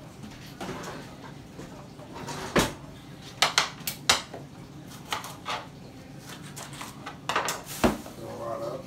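Knife knocking and clattering on a plastic cutting board as Brussels sprouts are cut in half by hand: a string of sharp, irregular knocks.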